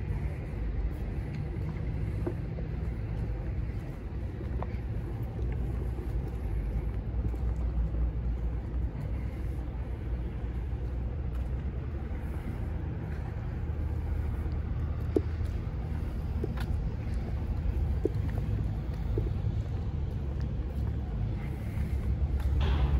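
Outdoor ambience dominated by a steady low rumble, with a few faint light knocks in the second half.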